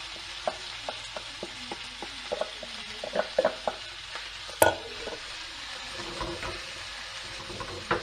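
Squid with an onion, garlic and chilli mix sizzling steadily in a frying pan hot enough to sizzle on contact. A spatula taps and scrapes against a stainless steel bowl, with one sharp knock about halfway through and a few more knocks near the end.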